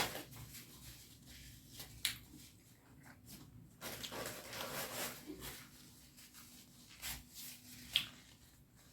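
Close-miked eating sounds: wet chewing and mouth noises from a mouthful of curry and rice, with a couple of sharp smacking clicks.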